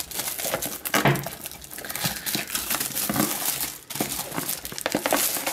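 Plastic packaging crinkling and rustling, with scattered small clicks and knocks, as hands unwrap and turn over a cardboard retail box.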